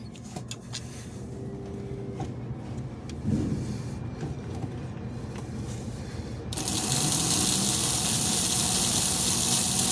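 The electric motor of a Lionel postwar F3 A unit switches on about two-thirds of the way in and runs with a steady, even whir and hiss. Before that, only a low hum and a few small clicks. The test run shows that one of the motor brushes had not been making contact.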